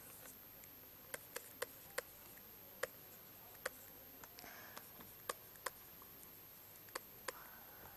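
Stylus tapping and clicking on a pen tablet during handwriting: about a dozen faint, sharp ticks at irregular intervals, with a soft scratch of pen strokes between them.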